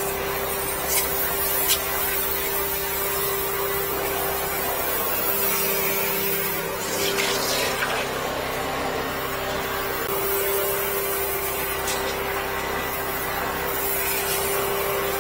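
High-pressure sewer jetter running, with a steady pump hum and water rushing and spraying as its jetting hose works through the drain pipe to clear a blockage. Two sharp clicks sound in the first two seconds.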